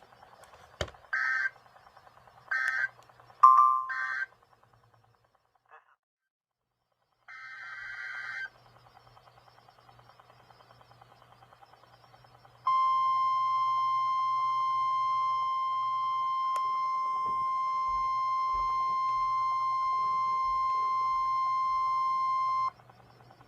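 NOAA Weather Radio alert signals: short buzzy digital data bursts of the Emergency Alert System header, three in quick succession and then one more after a pause, followed by the 1050 Hz warning alarm tone, a steady high beep held for about ten seconds that announces a warning.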